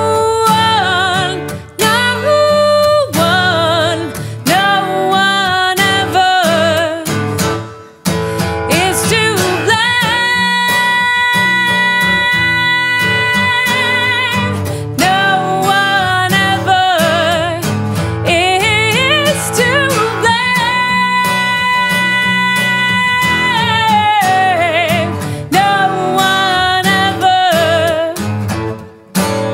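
Female voice singing long held notes with vibrato over acoustic guitar accompaniment.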